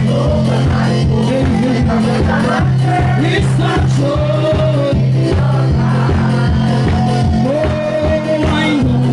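Live worship music with a steady beat and a strong bass, with singing over it.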